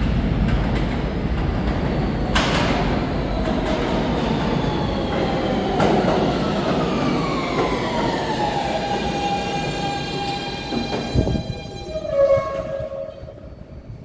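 R160 subway train pulling into the station and braking to a stop: wheel and track rumble under an electric motor whine that falls in pitch as it slows, then levels into a steady hum, with a short clunk as it comes to rest.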